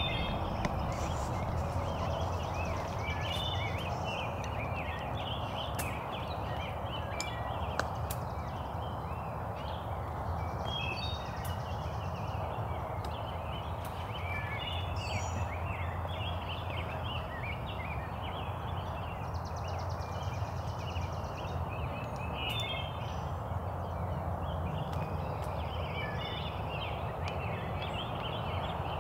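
Wild turkeys gobbling and calling in spring woods, among a steady chorus of chirping songbirds. A high buzzy trill comes back about every eight seconds.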